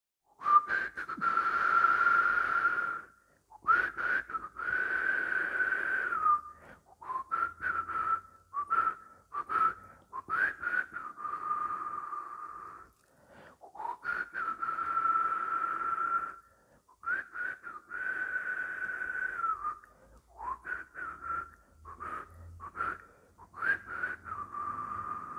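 A person whistling a slow tune alone, unaccompanied, in phrases of long held notes and short runs of quick notes, with brief pauses between phrases.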